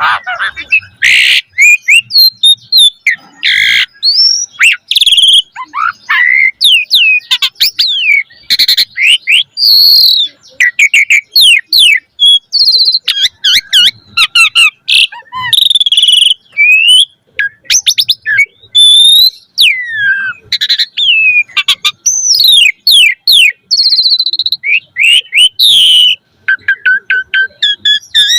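Pied starling (jalak suren) in full, vigorous song: a long, busy run of loud whistles, quick rising and falling glides, rapid trills and harsh chattering notes, with only brief breaks between phrases.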